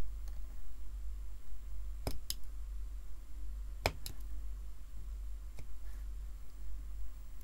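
A few sharp clicks from a hand RJ45 crimping tool as its cutter trims the ends of Cat5 cable wires: a pair about two seconds in, a stronger pair near four seconds, and a faint one later, over a steady low hum.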